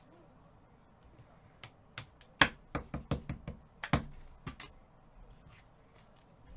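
A quick run of knocks and taps from about one and a half seconds in to nearly five seconds in, the two loudest about two and a half and four seconds in: hands handling trading cards on a tabletop.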